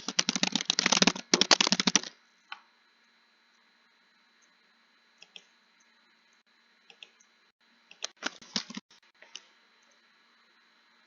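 Typing on a computer keyboard: a fast run of keystrokes for about two seconds, a few scattered key clicks, then another short flurry of keystrokes about eight seconds in.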